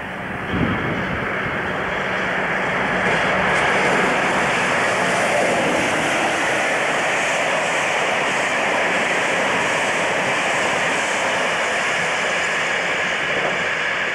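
English Electric Class 50 diesel locomotive passing at speed with a passenger train, its 16-cylinder diesel engine and the train making a loud, steady roar that builds to its loudest about four seconds in and then holds as the coaches go by. A brief thump about half a second in.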